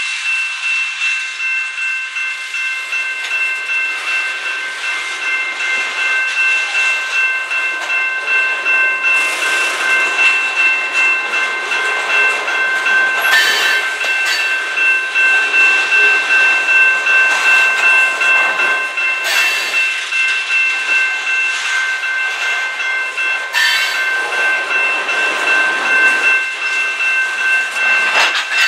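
Canadian Pacific freight cars rolling steadily past, their wheels clattering over the rails, with the grade crossing's warning bell ringing throughout as a steady high tone.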